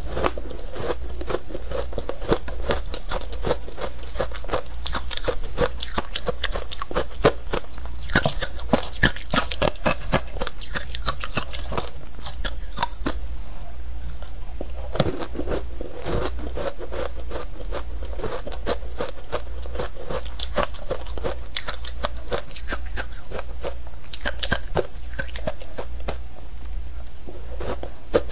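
Close-miked crunching and chewing of powdery soft ice dusted with matcha powder: a dense, irregular run of crisp crunches over a steady low hum.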